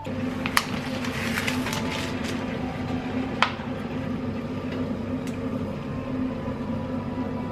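A kitchen appliance's motor switched on and running with a steady hum, with a few light clicks over it.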